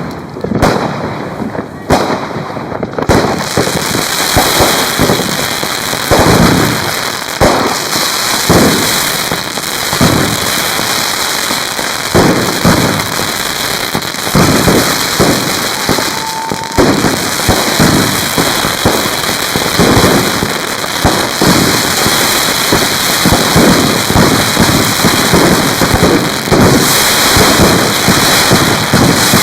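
Fireworks going off: a few separate bangs, then from about three seconds in a dense, unbroken barrage of rapid bangs and crackling.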